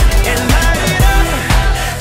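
Hip-hop backing music with a heavy bass beat about twice a second under a melodic line.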